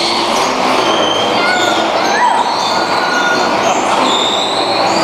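Bumper cars running on the rink: a steady din with short high squeals scattered through it.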